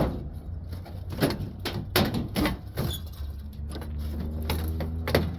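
Repeated sharp clanks and knocks of sheet metal being pulled apart and handled while an air-conditioner A-frame coil is stripped for scrap, over a steady low hum.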